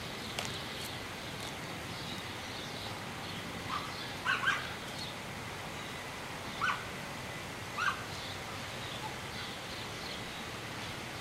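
A neighbourhood dog barking faintly in the distance: three short barks in quick succession about four seconds in, then two more about a second apart, over steady background noise.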